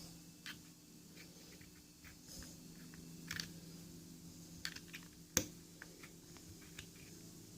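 Faint scattered clicks, taps and short rubs from small hard parts of a vape tank and mod being handled, with one sharper click about five seconds in, over a steady low hum.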